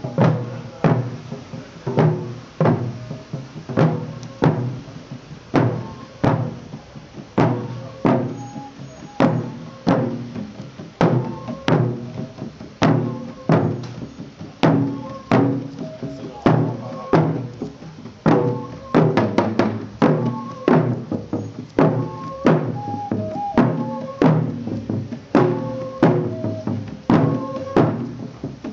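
A procession of drummers beating cylindrical side-slung drums in a steady marching beat, about three strokes every two seconds, with short higher notes sounding over the drumming.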